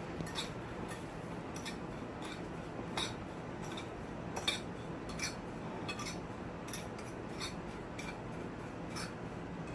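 A utensil stirring a dry breadcrumb and parmesan mix in a bowl, clicking lightly against the bowl at an uneven pace, about one or two clicks a second.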